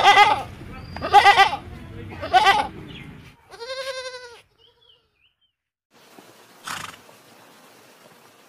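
Goats bleating: an adult black goat gives three loud bleats a little over a second apart, then a young goat kid gives one shorter, quavering bleat.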